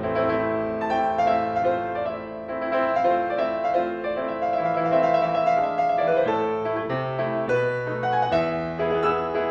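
Fazioli grand piano played solo: classical piano music, a melody of distinct notes in the middle range over held bass notes.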